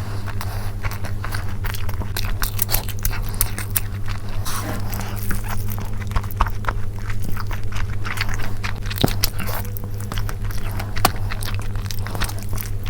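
Close-miked eating of chicken curry and rice: wet mouth smacks and chewing, many small irregular clicks, over a steady low hum.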